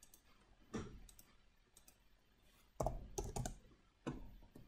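Computer mouse and keyboard clicks: a few scattered sharp clicks, with a quick run of them around three seconds in.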